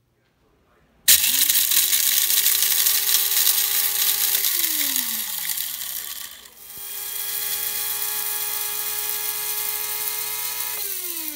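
Electric blade coffee grinder running in two bursts, its motor spinning up with the beans rattling inside. The first burst starts about a second in and winds down after about three seconds. The second starts just before the midpoint and winds down near the end.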